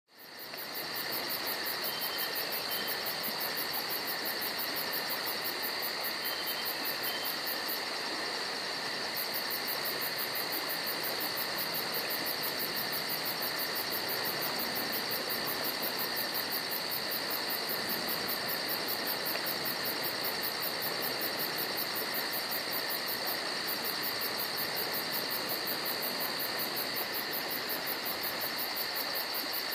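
Steady evening chorus of crickets and other night insects, unbroken, with trills at several pitches and a fast high-pitched pulsing over them.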